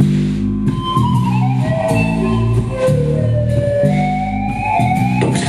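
Live rock band playing loud, noisy music: electric bass and drums keep up a repeating riff while a lead tone slides and wavers up and down in pitch above them.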